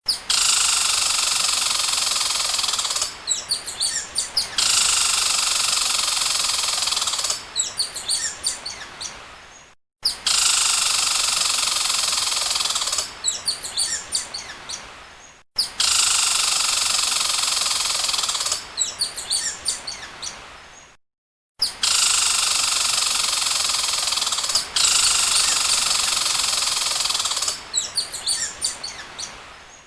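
Squirrel chattering: a long, rapid buzzing chatter of about three seconds followed by a string of short, sharp chirps that trail off. The sequence comes round again and again, broken by brief silences.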